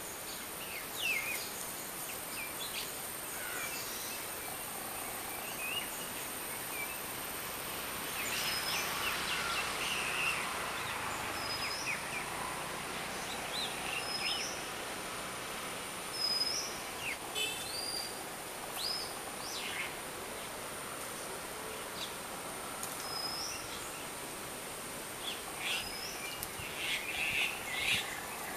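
Outdoor ambience: a steady high-pitched insect drone with assorted bird calls and chirps, including a short note that repeats every couple of seconds through the middle.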